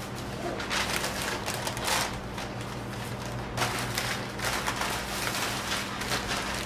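Paper rustling and crinkling in short bursts as a panino is wrapped by hand, over a steady low hum.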